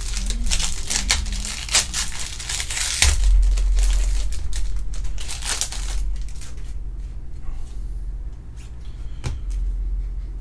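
Trading-card pack wrapper being torn open and crinkled, busiest over the first six seconds, followed by softer handling of the cards with a few light clicks.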